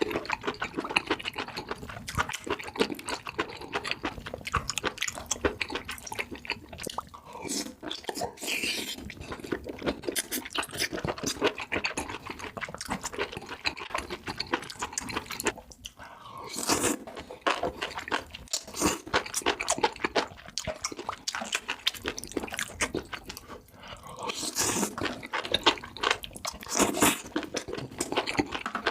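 Close-miked chewing and crunching of food, a dense run of sharp crackling bites that swells louder twice in the second half.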